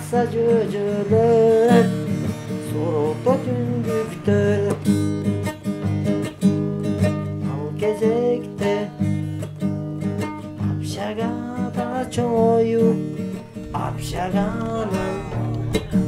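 Background music led by strummed acoustic guitar, with a wavering melody line over steady held chords.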